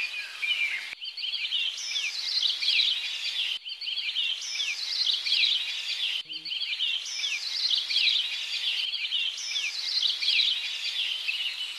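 Background birdsong of many small birds chirping and twittering in quick, high notes. The recording changes abruptly about every two and a half seconds, like a spliced or looped track.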